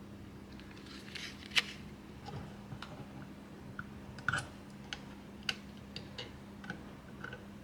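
Irregular light clicks and taps from hands handling a desktop CPU and its packaging, the sharpest about a second and a half in and a short cluster a little past four seconds.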